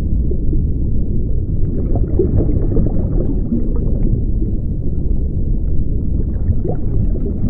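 Underwater ambience sound effect: a deep, steady, muffled rumble with a few faint gurgles.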